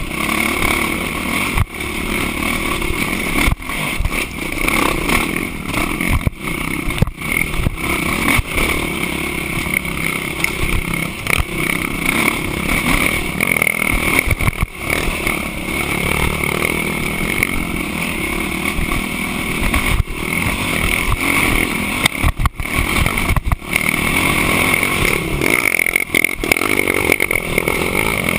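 Dirt bike engine running as the bike rides over a rough forest trail, with frequent knocks and rattles as it jolts over the bumps.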